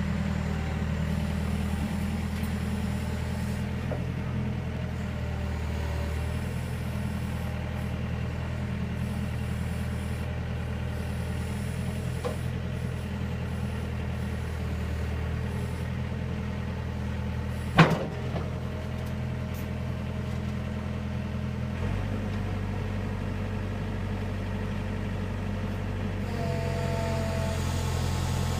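Compact excavator's diesel engine running steadily while the machine creeps along on rubber tracks, with one sharp knock about two-thirds of the way through. The engine note shifts slightly a few seconds later.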